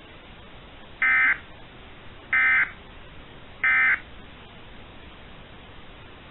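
Emergency Alert System end-of-message code: three short identical bursts of warbling data tones about 1.3 seconds apart, over a faint steady radio hiss. They mark the end of the weather-radio alert.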